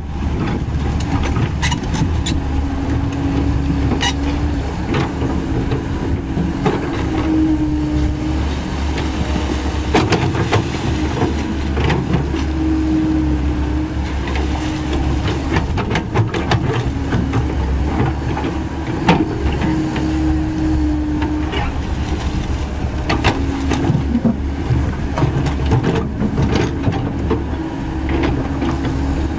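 Komatsu PC130F-7 swamp excavator's diesel engine running steadily under load as it digs in mud, with a higher drone that rises and drops away every few seconds as the hydraulics work. Occasional sharp clanks sound through it.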